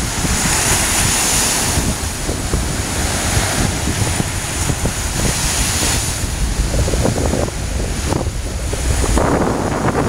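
Waves breaking and washing up the shore in surges that swell and ease every few seconds. Wind rumbles on the microphone throughout.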